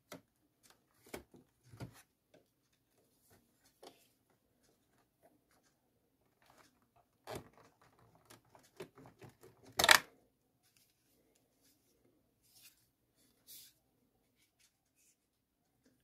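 Plastic clicks, knocks and rustles as a battery pack is worked loose and pulled out of a robot vacuum's battery compartment. They come as scattered short sounds with quiet gaps between, the loudest a single knock about ten seconds in.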